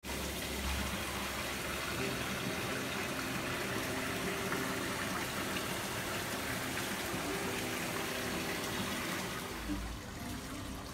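A steady, even rushing hiss, water-like in character, that eases off about nine and a half seconds in.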